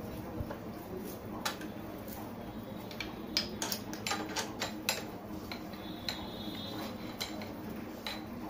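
Irregular metallic clinks and taps of metal parts being handled, a quick run of about a dozen between about three and five seconds in, with single ones before and after, over a steady low hum.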